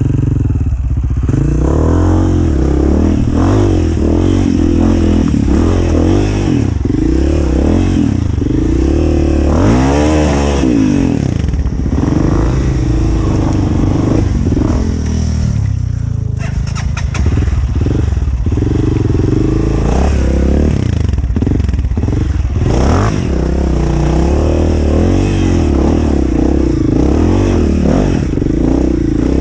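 Dirt bike engine revving hard in repeated rising and falling bursts as it works up a slippery, muddy trail, with a brief easing off about halfway through.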